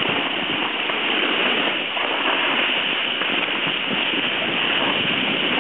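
Steady rushing hiss of sliding down a packed-snow slope, the scrape of snow under the filmer's gear mixed with wind on the microphone.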